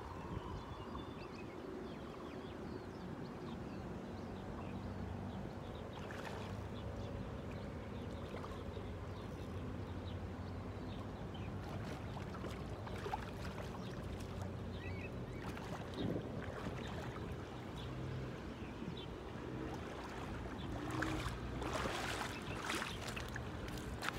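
A hooked cichlid splashing and thrashing at the water's surface several times as it is played in on rod and line, the splashes coming thickest near the end. A steady low hum runs underneath.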